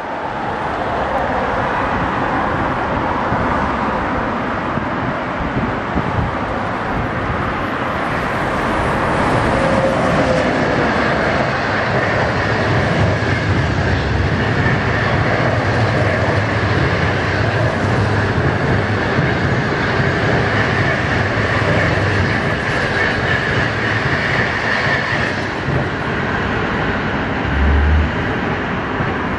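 Chinese passenger train, an SS8 electric locomotive hauling 25G coaches, passing at speed. Its steady rumble and rhythmic wheel clatter rise about a second in, run for some 25 seconds, then drop away as the last coach passes.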